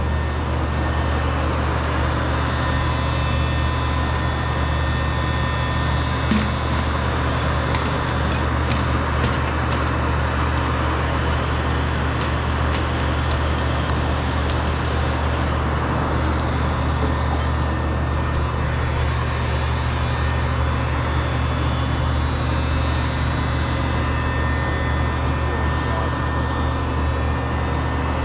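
Charcoal forge running with a steady machine hum and rushing air, with scattered light crackles about a third of the way in.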